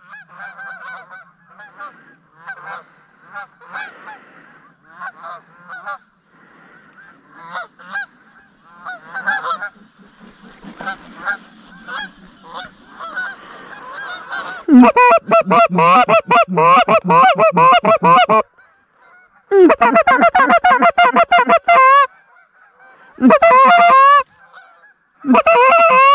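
A flock of Canada geese honking at a distance, then, from about 15 seconds in, loud, fast runs of goose honks and clucks close by in four bursts with short gaps.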